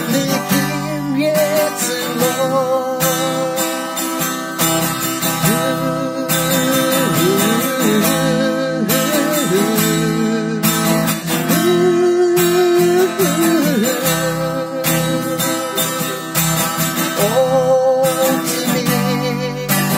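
A man singing with vibrato on held notes, accompanying himself on a strummed acoustic guitar.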